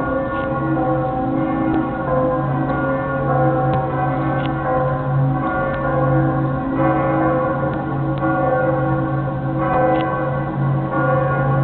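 Many church bells ringing together for the noon hour, their tones at many pitches overlapping without a break.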